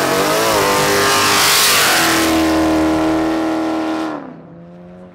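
Dodge Challenger's V8 revved hard and held at high revs during a burnout, with the hiss of spinning rear tires. The engine note climbs, holds steady, then falls away sharply about four seconds in as the car pulls off.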